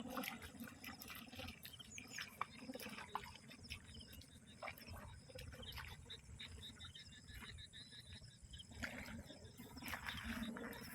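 Yellow-phased Indian bullfrogs calling at a pond: many short, overlapping croaks and calls, with runs of quick repeated notes around the middle.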